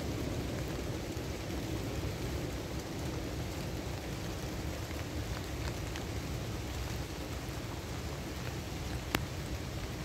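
Steady rain falling on a forest's leafy canopy, an even hiss with a deeper low-pitched layer beneath it. A few light drip clicks stand out, one sharper about nine seconds in.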